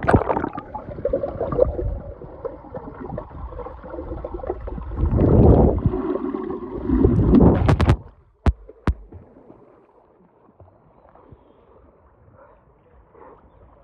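Swimming-pool water splashing and gurgling close around a phone's microphone, with heavier surges of sloshing. About eight seconds in it cuts to a dull, muffled hush after two sharp clicks, as when the phone goes under the water.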